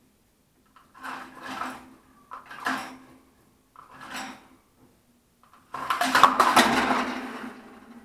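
A water pot in a birdcage rattling and clattering as it is knocked about: three short bouts, then a longer, louder clatter about six seconds in that dies away. The birds are working the pot loose and knocking it down.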